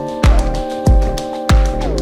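Background music: sustained synth-like tones that glide between notes over a steady, strong beat of about one and a half beats a second.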